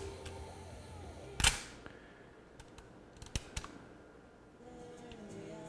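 Kenwood KRC-858 car cassette deck's mechanism: a sharp clunk about one and a half seconds in, then lighter clicks, as a cassette is loaded and set playing. Faint music from the tape starts near the end.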